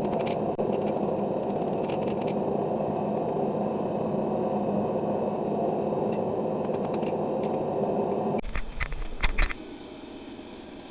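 A forge running with a steady rushing noise, which cuts off suddenly about eight seconds in. A few sharp clicks and clatters follow, then a quieter stretch.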